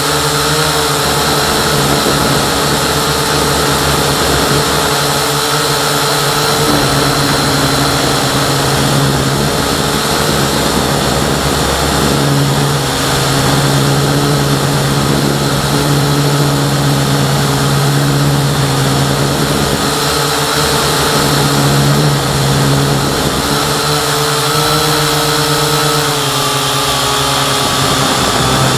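Syma X8C quadcopter's motors and propellers running steadily, heard close from the camera on board the drone. The whine holds several steady pitches that step up and down a few times as the motor speed changes.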